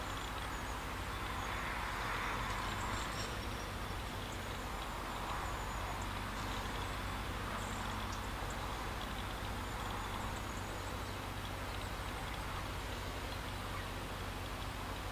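Low, steady engine hum from a 100-tonne mobile crane running while it moves a lock gate, under a fluctuating outdoor hiss.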